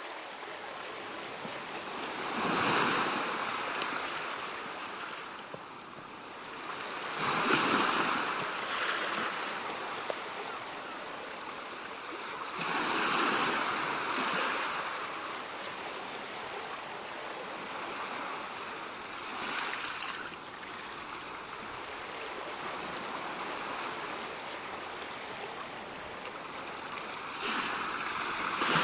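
Ocean waves breaking on a shore over a steady background wash. Five waves crash in turn, about five or six seconds apart, with a longer lull before the last one.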